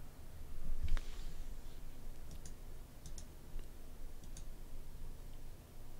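Light computer-mouse button clicks, several quick press-and-release pairs, over a low steady hum, with one louder knock about a second in.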